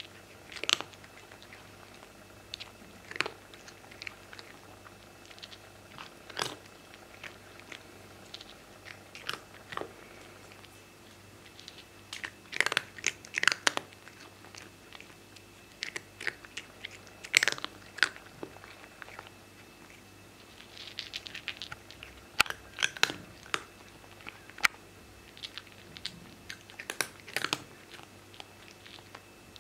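A cat crunching dry kibble: irregular crisp crunches with pauses between them, now single, now in quick clusters of several bites.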